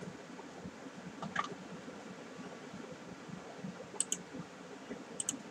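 Faint room hiss with computer mouse clicks: a pair of clicks about four seconds in and another pair near the end.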